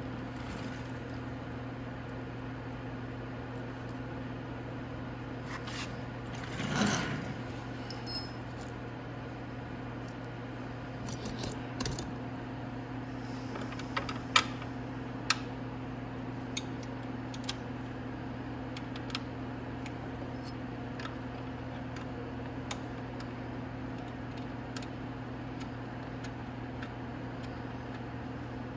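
Scattered metallic clicks and clinks of bolts, nuts and hand tools as the lower fairing bolts are fitted, with a brief rustle about seven seconds in, over a steady low hum.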